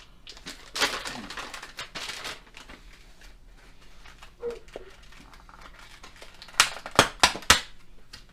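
Plastic packaging of soft-plastic fishing baits being handled and crinkled: a stretch of rustling about a second in, then four sharp, loud crackles near the end.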